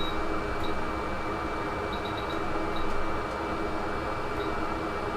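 A small fan motor running steadily, with a thin constant high whine over its even whir and a few faint short ticks.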